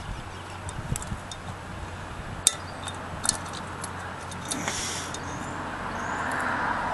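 Light metallic clicks and clinks of a valve spring, retainer and keepers being worked loose and lifted out of a cylinder head, with one sharper click about two and a half seconds in.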